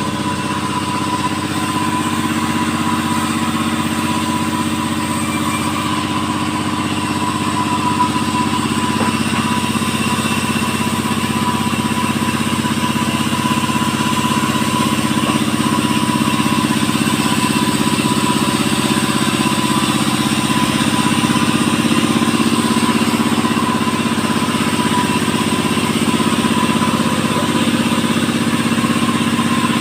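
A 5800-type two-stroke chainsaw with a 22-inch bar running steadily while it rips lengthwise through a teak log, the engine note growing slightly louder over the stretch.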